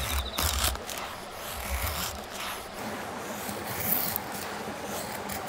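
Knife blade shaving thin curls down a dry wooden stick to make a feather stick: a run of short scraping strokes, the strongest near the start.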